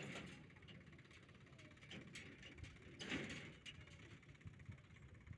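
Faint, distant diesel engines of a backhoe loader and a tractor running, a low rumble with two brief rushes of hiss, one at the start and one about three seconds in.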